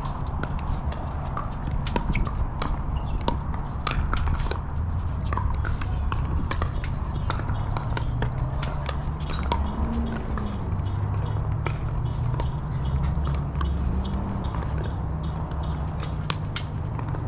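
Pickleball rally: sharp, irregular pops of paddles striking the plastic ball and the ball bouncing on the hard court, with shoe scuffs. Under it runs a steady low rumble that rises and falls in pitch twice near the middle.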